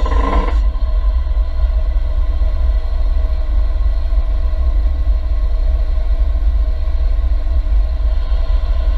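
Off-road vehicle engine idling, a steady heavy low rumble with an even hum over it; a short burst of noise right at the start.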